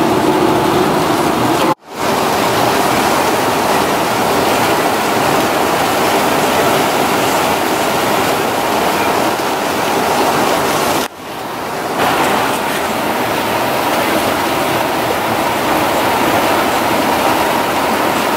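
Steady rushing road noise heard from inside a vehicle driving on a wet highway in the rain, the tyres hissing on the wet road. The noise drops out briefly twice, about two seconds in and about eleven seconds in.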